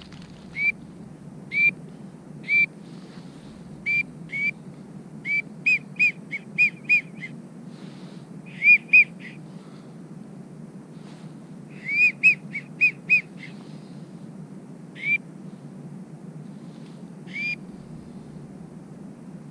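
Wigeon duck call (wigeon whistle) blown in short, arched whistled notes, some single and some in quick runs of five or six, with pauses between. It mimics the whistle of drake wigeon to draw birds in, over a steady low hiss of background noise.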